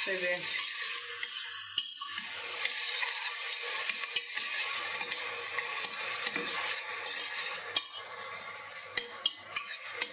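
Diced onions sizzling softly in olive oil in a stainless steel pot, softening as they cook, while a spoon stirs them, scraping and clicking against the pot. A few sharper spoon clicks come near the end.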